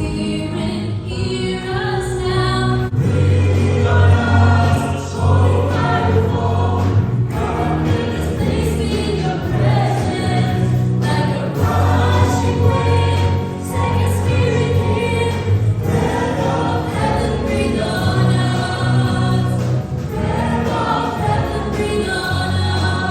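Group of voices singing a Christian worship song over instrumental accompaniment, with a sustained bass line shifting from note to note.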